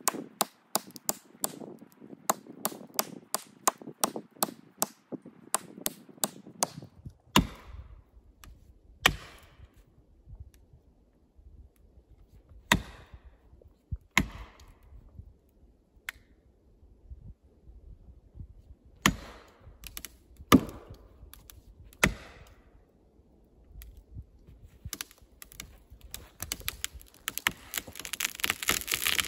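Felling wedges being driven with the poll of an axe into the back cut of a standing tree: a quick run of sharp strikes, about three a second, for the first several seconds, then heavier single blows one to several seconds apart, each with a short ringing echo. A hiss builds near the end.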